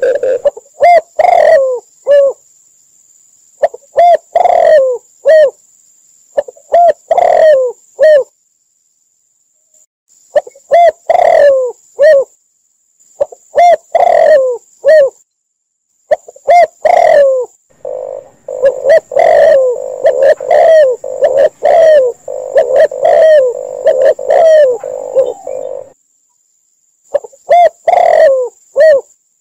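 Doves cooing, a mixed recording of spotted dove, red collared dove and zebra dove calls: short falling coo notes in groups of two to four, with pauses between. From about two-thirds of the way in, the coos come in a denser, faster run for several seconds.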